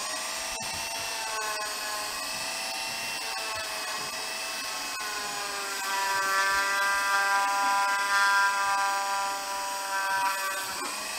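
Dremel rotary tool running with a polishing bit pressed against a metal soap-dispenser pump spout: a steady high motor whine. About six seconds in the whine climbs in pitch and gets louder, then drops back just before the end.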